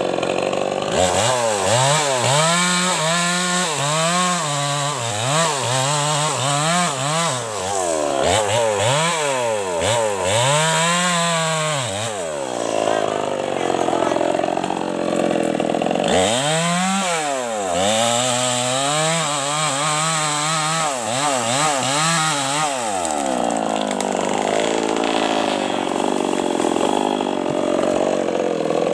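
Small two-stroke chainsaw revved up and down over and over, its pitch rising and falling, then held at a steady high run as the chain cuts into the base of a tree trunk. The pattern comes twice.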